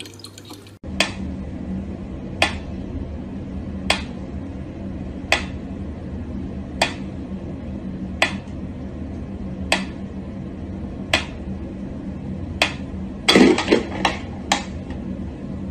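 Mechanical pendulum metronome ticking slowly and evenly, about one sharp tick every second and a half, over a low steady hum. Near the end comes a quick burst of louder knocks and clatter.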